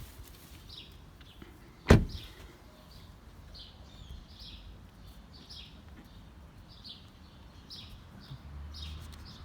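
BMW F30 car door being shut once with a solid thump about two seconds in, with no squeak from its rubber door seals, which have just been rubbed with soap. Birds chirp repeatedly in the background.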